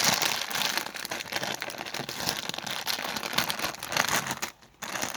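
White slime being squeezed and poked in the hands, giving a dense run of crackling and crinkling, which stops briefly near the end.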